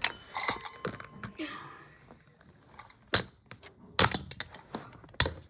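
Hard toy pieces clicking and knocking together as they are handled, in a series of separate sharp taps with the loudest about three and four seconds in.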